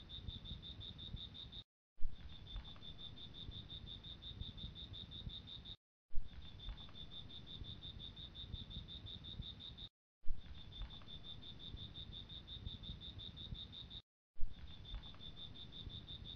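Insect trilling, a rapid steady pulsing, with low background rumble. It repeats as a loop about every four seconds, each repeat cut by a brief dropout and a sharp click.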